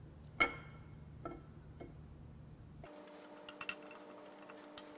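Metal clinks and light ticks from a camshaft being worked out of a Jeep 4.0L inline-six block by a rod threaded into its nose, the lobes knocking against the cam bearings: one sharp ringing clink about half a second in, a few softer ones after, and light ticking near the end. A steady background hum changes pitch about three seconds in.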